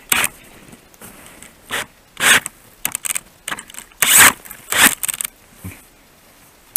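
Cordless drill and ice auger being handled and fitted together: about eight short rasping scrapes, the loudest about four seconds in.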